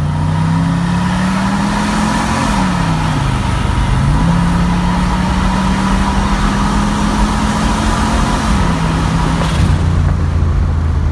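A boosted LS V8 in a GMC Canyon pulling under full throttle. The engine note climbs, drops sharply about two and a half seconds in as it shifts up, climbs again, then drops and levels off near the end, with a steady high whine over it until then. The run makes only about 11 psi of boost against the 22–23 expected, a boost problem the owner suspects is a cracked intake or a faulty purge solenoid.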